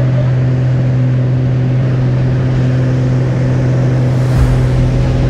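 Single-engine propeller plane's engine running steadily at takeoff power, heard from inside the cabin as a loud, even drone. A deeper rumble joins it about four seconds in as the plane climbs away.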